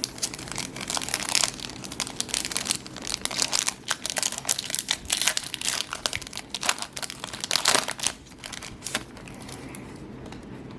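Foil wrapper of a Yu-Gi-Oh booster pack crinkling and rustling in the hands as it is torn open, in a dense run of irregular crackles that dies down near the end.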